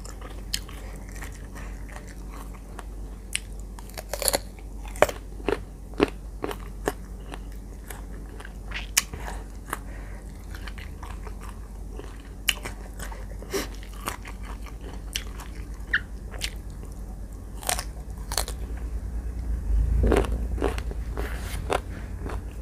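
Crisp crunching and chewing of firm unripe green mango slices coated in chili-salt, eaten close to the microphone, with sharp irregular crunches as each bite breaks.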